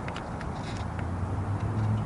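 Low, steady engine hum of a nearby vehicle, growing louder near the end, with a few faint ticks in the first second.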